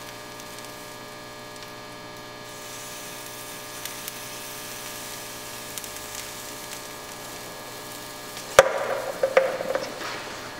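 Liquid nitrogen poured out of a cup, hissing as it boils off, over a steady electrical hum; the hiss grows about two and a half seconds in. Near the end comes one sharp knock followed by a short run of cracks and clicks.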